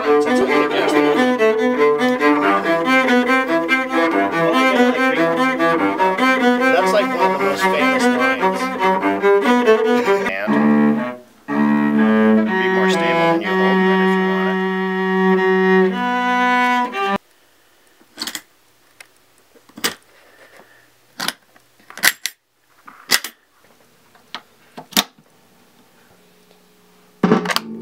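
Bowed cello playing a quick run of notes, then slower held notes that stop about 17 seconds in. After that come scattered sharp clicks and knocks of gear being handled, ending with a louder click as a guitar cable's jack is plugged into an amplifier input.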